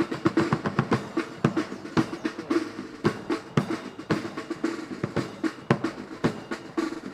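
Military band drums, snare and bass drum, beating a steady marching rhythm of several strokes a second.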